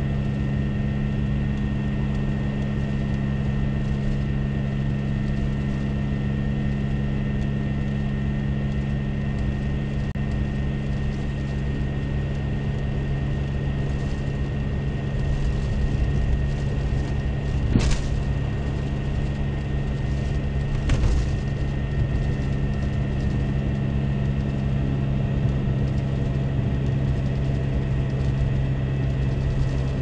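Steady hum of a car driving on a snow-covered road, heard from inside the cabin: engine drone and tyre noise. Two short thumps about three seconds apart come about two-thirds of the way through.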